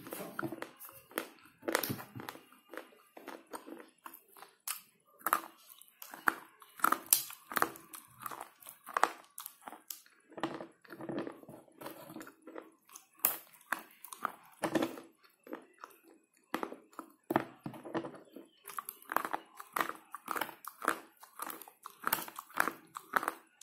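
Slate pencils being bitten and chewed: a run of dry, gritty crunches, several a second, with a short lull about two-thirds of the way through.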